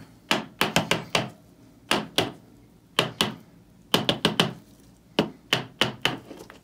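A rigid plastic top loader holding a trading card, tapped edge-down on a tabletop: sharp plastic clicks in quick groups of two or three, about once a second.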